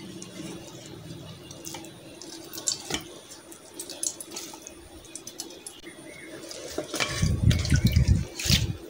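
Water draining and trickling from a cloth bundle of grated potato into a steel bowl as it is squeezed, loudest over the last two seconds. Before that, soft rustling and handling of the wet cotton cloth.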